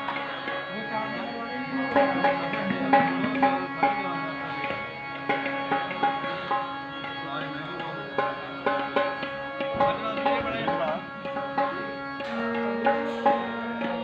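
A band playing during a sound check: hand-drum strokes in a steady rhythm over a held drone and melody. The held notes move to a new pitch about twelve seconds in.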